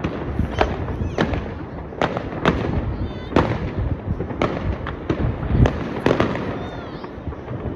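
New Year fireworks going off: an irregular run of sharp bangs and pops, about two a second, over a continuous low rumble of more distant explosions.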